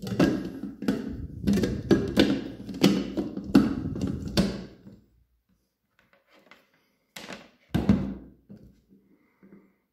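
Hard plastic clacking and knocking as the lid of a SilverCrest hand blender's chopper attachment is set on its clear plastic bowl and twisted into place, for about five seconds. Then a pause and two dull knocks.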